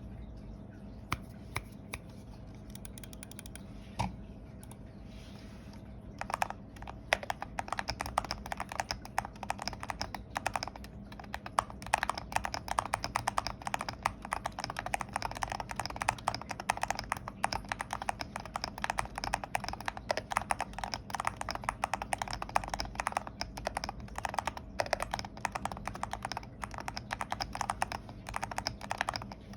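Typing on a Melgeek Made 68 Ultra keyboard modded with polyfill, three layers of tape, a POM plate and ceramic keycaps. A few single keystrokes come first, then steady fast typing starts about six seconds in.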